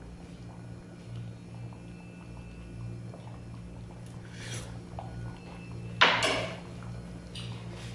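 A single sharp clank about six seconds in, the loudest sound, over a steady low hum, with a softer brief rustle or scrape a second and a half before it: kitchen clatter while cooking at the stove.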